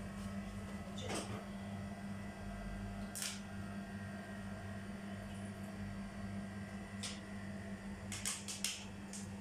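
Steady low hum of room tone with a few short, soft swishes, several of them close together near the end.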